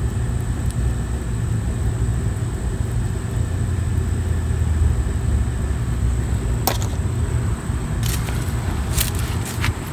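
A steady low rumble, with a few sharp clicks in the last three seconds as greasy tapered roller wheel bearings from a drum-brake hub are handled and set down.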